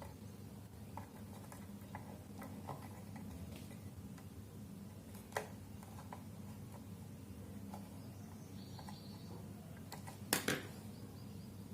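Hand work on electrical wiring: scattered light clicks and taps as fan wires are handled and fastened, with a louder click about five seconds in and a couple more near the end, over a low steady hum.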